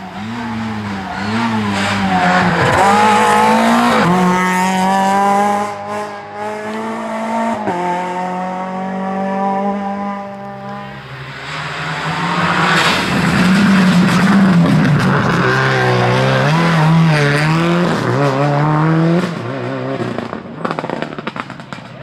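Rally cars at full throttle on a tarmac stage, their engines revving hard. In the first half one car accelerates through several upshifts. In the second half a Subaru Impreza WRX STI's turbocharged flat-four revs up and down quickly as it brakes and accelerates through the bends.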